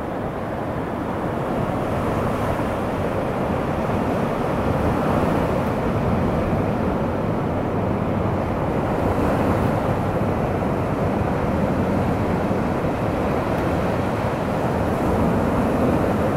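Steady rushing noise of sea waves on the shore, with wind on the microphone.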